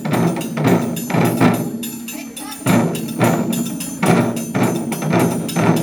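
Japanese taiko drums struck hard in a repeating pattern of loud hits, with a metallic percussion ringing along above them.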